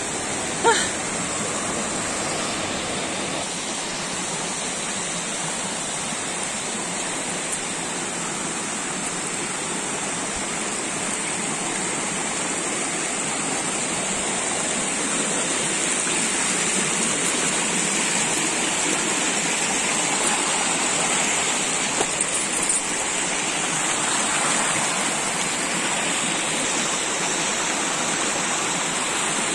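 Shallow rocky forest stream rushing over stones and small cascades, a steady rush of water. A brief sharp sound about a second in.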